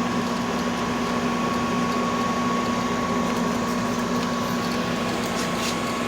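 GE window air conditioner running: a steady rush of fan air with a constant hum and a thin, steady high tone.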